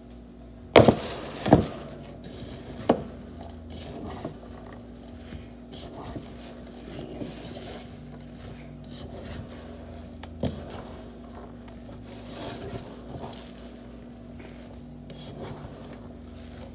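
Chopped vegetables being stirred and mixed in a stainless steel stock pot: low scraping and rubbing, with three sharp knocks against the pot in the first three seconds and another about ten seconds in.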